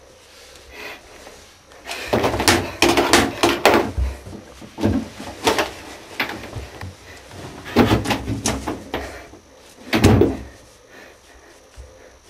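Irregular clatter and knocks in a small tiled room: a quick run of them about two seconds in, then a few single knocks later on.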